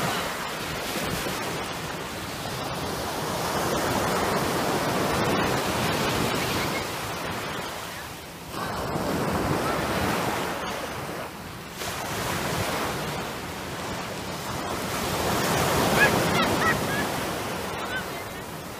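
Small surf breaking and washing up onto a sandy beach, swelling and fading with each wave every few seconds.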